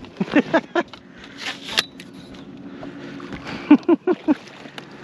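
A hooked bass splashing at the water's surface beside a bass boat, with scattered knocks and clicks of gear inside the boat and a few brief grunts.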